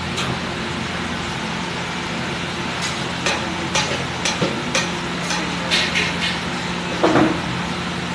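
A metal spatula scrapes and taps on a large flat tawa as bhaji masala is worked on it. There are a series of sharp clicks, mostly in the middle of the stretch, over a steady low background hum.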